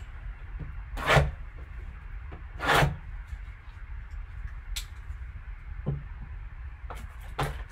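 Gloved hands handling a shrink-wrapped box of trading cards: two short rustling swishes of plastic and cardboard about one and three seconds in, then a few light clicks and taps while a folding pocket knife is handled over the box.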